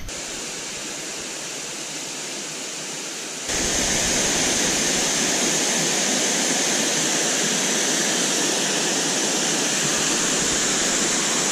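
Berry Creek Falls waterfall rushing steadily. The sound jumps abruptly louder about three and a half seconds in and then holds steady.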